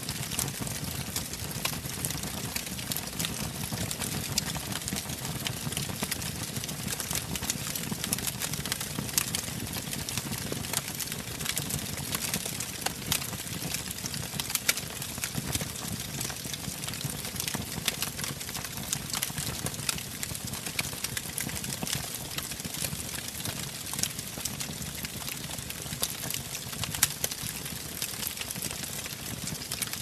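Wood fire burning in a fireplace: a steady low rush of flames with frequent sharp crackles and pops from the burning logs, a few of them louder.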